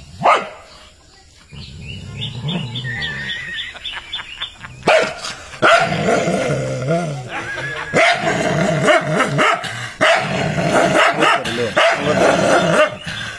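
A dog growls low, then from about five seconds in barks and snarls again and again, in aggression at its own reflection in a mirror.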